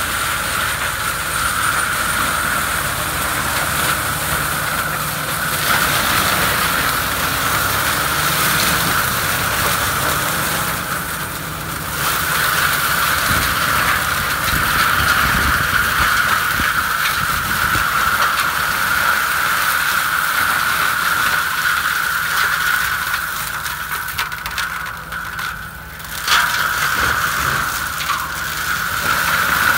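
FAE forestry mulcher driven by a Fendt 936 tractor, its rotor running with a steady high whine as it shreds brush and shrubs, over the rumble of the tractor's six-cylinder diesel. The whine briefly fades about a third of the way in and again late on, then comes back suddenly.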